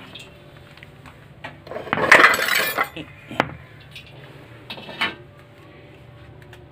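Metal cookware clattering and clinking as pans are handled: a loud burst of clatter about two seconds in, then a few lighter knocks and clinks a second and three seconds later.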